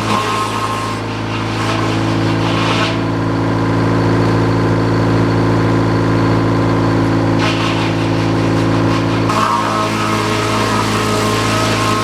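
Sawmill engine running at a steady speed. A rushing hiss swells and fades twice over it.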